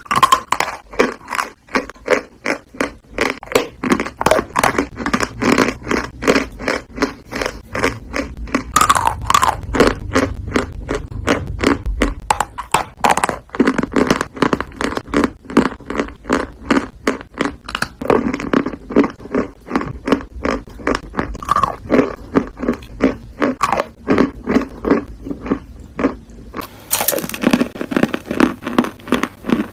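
Close-up crunching of dry MyLove eating chalk being bitten and chewed, in an even rhythm of about two to three crunches a second, with a sharper, crisper stretch near the end.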